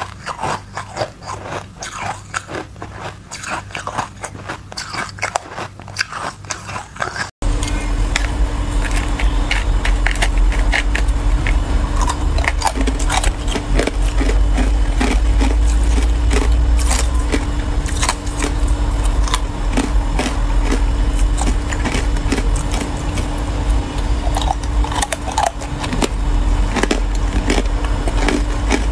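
Ice being bitten and crunched close to the microphone, a dense run of sharp cracks and crackles. At first it is thin green waffle-shaped ice. After a sudden cut about seven seconds in it is ice cubes coated in matcha powder, over a steady low hum.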